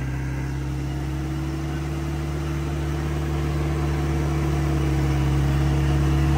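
Off-road vehicle engine idling steadily, growing gradually louder.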